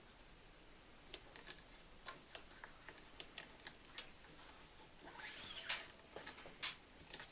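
Faint, irregular small clicks and rustles of nylon paracord being handled and pulled tight by hand while tying a knot, with a longer scratchy rustle about five seconds in.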